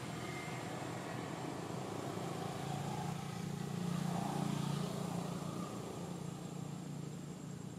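Steady low drone of a motor vehicle engine in the background, swelling about halfway through and then easing off.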